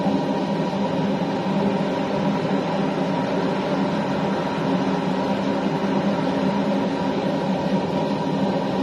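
Steady hum and whir of a kitchen fan, running evenly without change.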